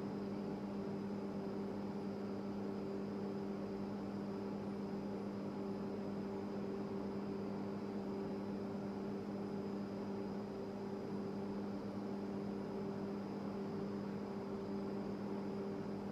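A steady, unchanging machine hum with a faint high whine over a light hiss.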